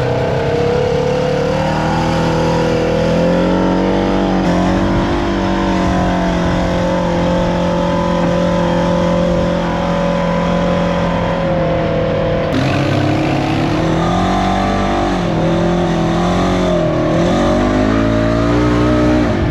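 Polaris RZR 900 side-by-side's parallel-twin engine running under way on a trail. Its pitch rises and falls over and over as the throttle is worked.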